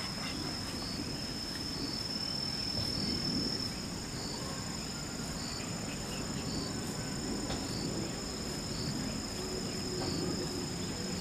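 Insects trilling steadily at a high pitch, with a short chirp repeating about once a second, over a constant low background rumble.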